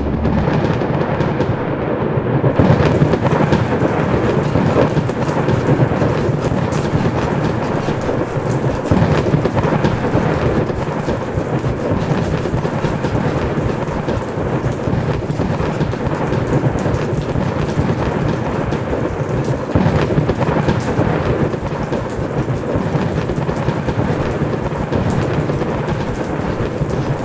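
Heavy rain pouring steadily, with rolls of thunder swelling up now and then.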